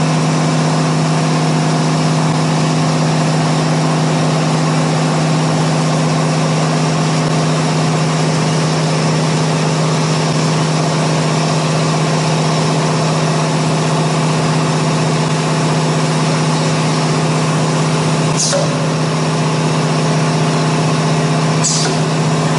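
CNC router with an automatic tool changer running during automatic tool-length measurement, giving a loud, steady machine hum with an even hiss over it. Two brief high-pitched sounds come near the end.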